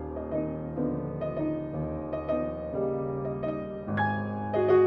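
Background music: a gentle piano melody over sustained notes.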